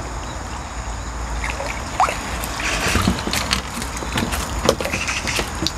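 Hooked crucian carp splashing and thrashing at the surface while being played in on the rod: a run of short, irregular splashes and water slaps.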